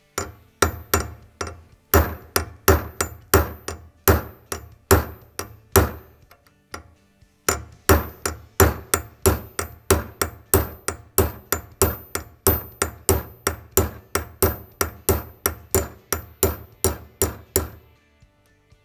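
Small hammer striking a brass punch to drift a tight pistol rear sight out of its dovetail, the slide clamped between bare steel vise jaws. The taps are rapid and sharp with a metallic ring, about three a second. They pause briefly about six seconds in, then go on until near the end.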